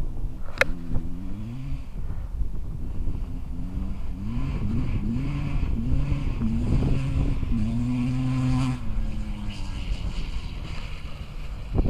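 Kawasaki KX250 motocross bike engine accelerating past, its revs climbing and dropping several times as it shifts up through the gears. It is loudest near the middle, then drops in pitch and fades away as the bike moves off. A sharp click about half a second in.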